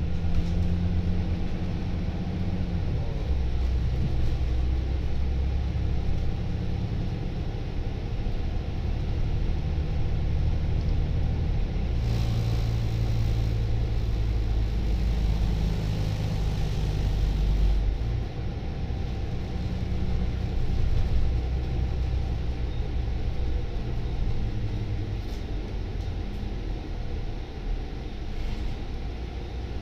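Volvo B9TL double-decker bus under way, heard from inside the upper deck. The diesel engine runs as the bus drives, its note changing a few times, together with road and tyre rumble.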